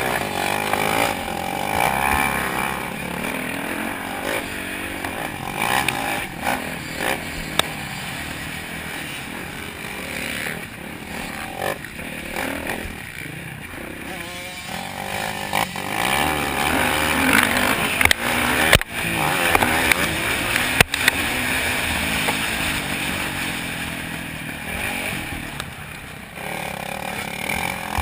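2008 Yamaha YZ450F's single-cylinder four-stroke engine being ridden hard on a motocross track, its revs rising and falling again and again as the rider throttles on and off.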